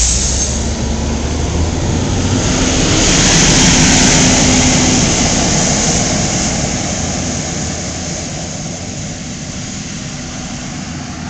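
2004 Gillig Advantage transit bus with a Cummins ISM diesel pulling away and driving off. Its engine and road noise swell to a peak about four seconds in, then fade as it moves farther away.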